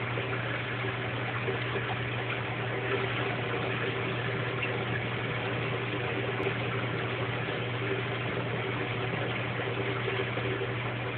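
Aquarium equipment running: a steady low hum under an even, water-like rushing hiss that does not change.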